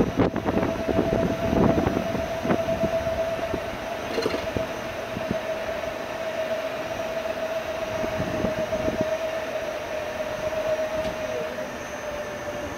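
Electric tourist road train riding along, its motor giving a steady whine that dips slightly and fades out near the end, while the wagon rattles and knocks over the road surface.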